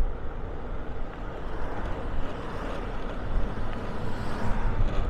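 Wind buffeting the microphone on a moving motorbike, over a steady low rumble of engine and road noise.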